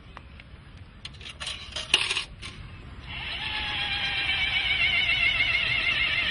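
Coins dropping into a bench's coin slot, a few metallic clicks and clinks, then from about three seconds in a steady warbling mechanical whine that grows louder as the bench's metal spikes start to retract.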